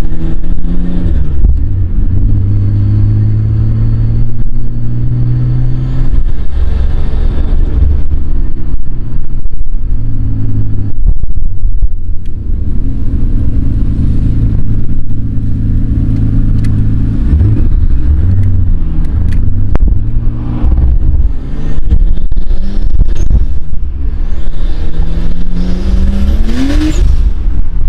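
Nissan Skyline R33's RB25DET turbocharged straight-six with an aftermarket exhaust and HKS muffler, heard from inside the cabin while driving. The revs climb through the gears and drop at each shift, with a hard rev climb near the end.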